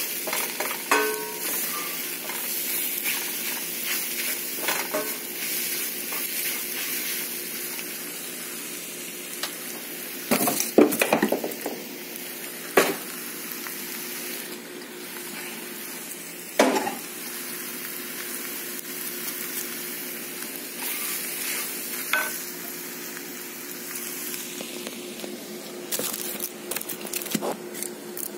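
Scrambled eggs sizzling in a cast-iron skillet as a wooden spatula stirs and scrapes them. A steady frying hiss runs under a few sharp knocks, the loudest near the middle.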